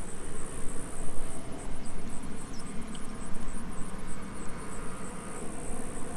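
Insects trilling steadily at a high pitch, with a pulsing chirp from about a second and a half in until about four seconds, over a low, uneven rumble.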